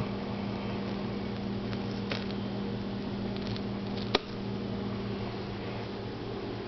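UPC sticker being lifted and peeled off a plastic motor-oil jug with a utility knife: a few faint scratches and one sharp click about four seconds in, over a steady low hum.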